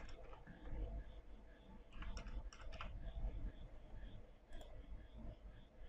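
Faint computer mouse clicks and keystrokes: a single click at the start, a quick run of about five clicks about two seconds in, and another click about four and a half seconds in.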